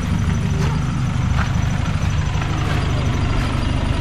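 Toyota Hilux pickup running: a steady low engine drone with a rushing haze over it.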